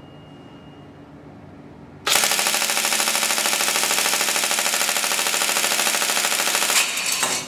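Tokyo Marui M4 SOPMOD airsoft electric gun (AEG) firing one long full-auto burst, its gearbox cycling shot after shot at a fast, even rate for about five seconds. The burst starts suddenly about two seconds in and stops just before the end.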